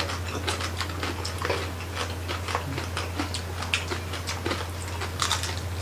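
Close-miked chewing and crunching of crispy lechon (whole roast pig) skin and meat: a rapid, uneven run of small crackling clicks, over a steady low hum.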